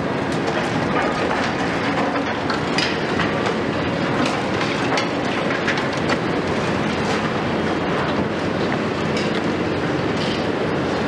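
High-reach demolition excavator working on a concrete high-rise: a steady rumble of the machine with frequent sharp cracks and clatters of breaking concrete and falling debris.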